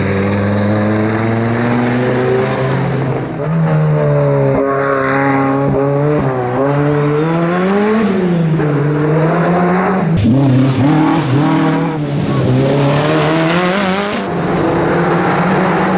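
Rally car engine revved hard through a slide. The pitch climbs and drops several times, with brief sharp breaks as the throttle is lifted or a gear is changed.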